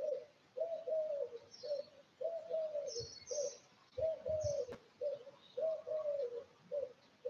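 A dove cooing, a phrase of low, slightly falling coos repeated every second or two, with a few faint chirps from small birds.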